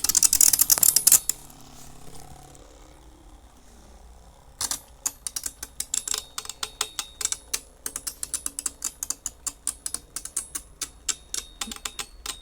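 Beyblade spinning tops clattering in a plastic stadium: a burst of rapid clicking that stops about a second in, a quieter stretch, then fast, steady clicking as the tops knock against each other and the stadium rim from about four and a half seconds on.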